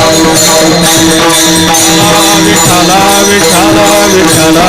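Kirtan devotional music: voices chanting the refrain over a steady held drone, with hand cymbals jingling in a quick regular rhythm.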